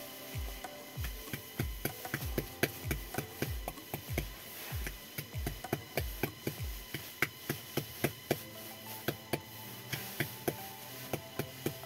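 Wooden pestle pounding in a small mortar: a quick, uneven run of sharp knocks. Background music with a deep beat plays underneath, and the beat stops about seven seconds in.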